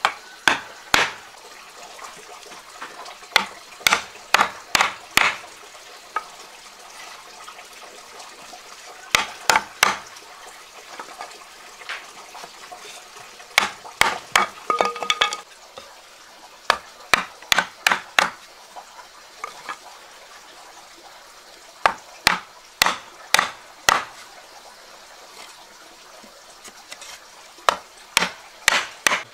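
Wooden slats being knocked down into the slots of a wooden rail with a flat steel tool: sharp wood-on-metal knocks in short runs of three to six, with pauses between runs, over a steady low hiss.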